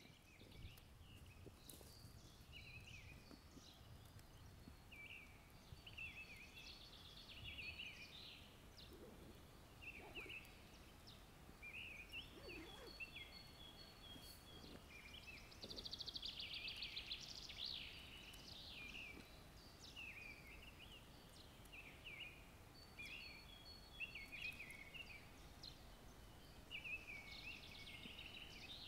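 Faint woodland birdsong: several small birds chirping and warbling over a low background rumble, with a fast trill about halfway through.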